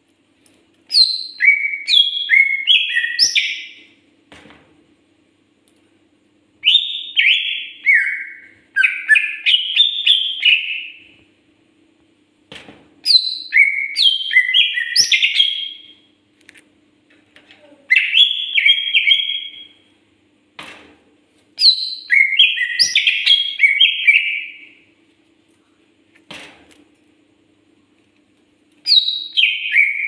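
Greater green leafbird (cucak ijo) singing: bursts of quick, high, varied whistled notes one to three seconds long, repeated every few seconds. A faint steady hum and a few soft clicks lie beneath.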